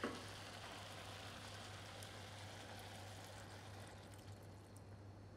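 Faint, steady sizzle of minced meat frying in a pan, fading near the end.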